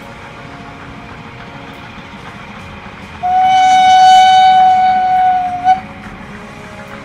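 Whistle of a Selketalbahn narrow-gauge steam locomotive, blown once about three seconds in. It gives a single steady note for about two and a half seconds and ends with a short final blip.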